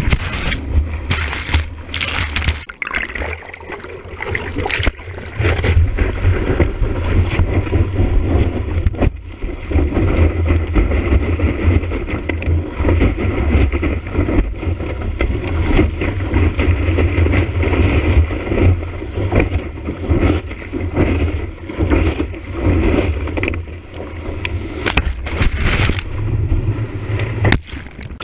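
Surf rushing and splashing around a surfboard-mounted action camera, with a heavy low rumble of water and wind buffeting on its microphone. Sharp knocks and splashes cluster near the start and again near the end.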